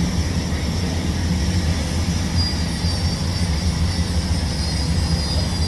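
A steady low machine rumble with a faint thin high whine over it.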